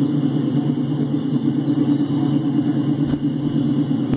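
An engine running steadily at idle, a constant low drone that does not change.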